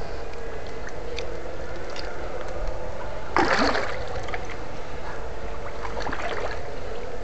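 Water splashing in a shallow creek pool as it is worked with an electrofishing probe, with one loud splash about three and a half seconds in. A steady low hum runs underneath.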